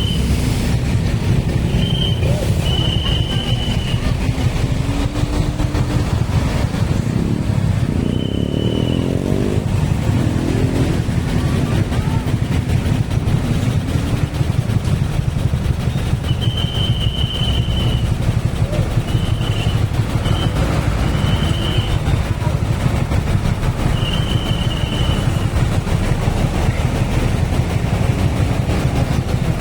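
A vehicle engine running with a steady low rumble, with short high-pitched beeps sounding a dozen or so times at uneven intervals.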